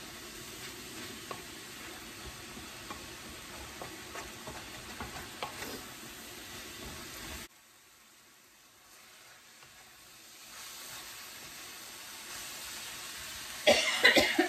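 Chopped chicken and shredded cabbage sizzling as they stir-fry in a wok, with a wooden spatula scraping and tapping on the pan. The sizzle drops away suddenly about halfway through and comes back a few seconds later, and a loud clatter on the wok comes near the end.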